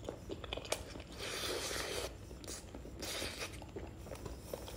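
Close-up chewing of a hot mouthful of grilled balut: wet mouth sounds and soft clicks, with two longer breathy hisses, about a second in and about three seconds in, as air is drawn over the hot food.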